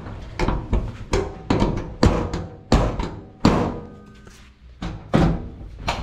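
Front hood of a 1961 VW Beetle being slammed and pressed down over and over: a rapid run of sheet-metal thunks and latch clunks, some ringing. The newly reworked hood latch does not like being slammed but clicks into place when the hood is pressed.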